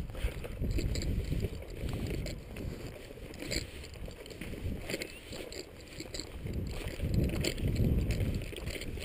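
Footsteps through dry grass, a faint tick or rustle about once a second, with wind rumbling on the head-mounted microphone.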